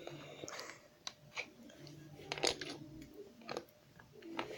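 Plastic Lego pieces clicking and knocking as they are handled, a handful of separate sharp clicks with the loudest about halfway through.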